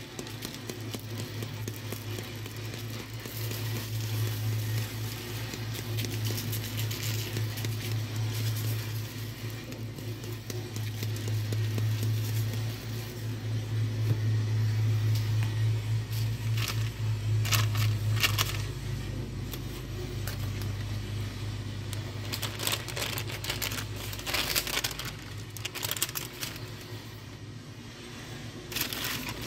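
Seasoning rub being shaken and sprinkled onto a raw bacon-wrapped roll, with crinkling of the parchment paper and scattered crackly taps. A low steady hum runs underneath and stops a few seconds before the end.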